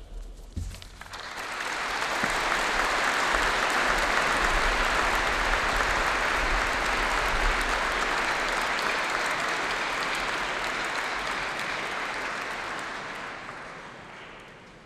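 Audience applauding, swelling about a second in, holding steady, then dying away near the end.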